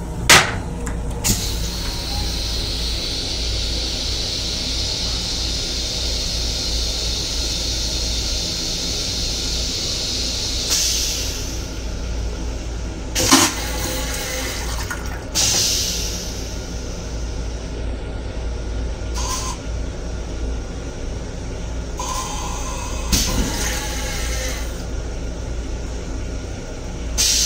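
Toilet seat dropping with a clack, then the stainless steel toilet of an M7 railcar flushing: a long even hiss of rinse water for about ten seconds, followed by several short loud bursts. A steady low rumble runs underneath.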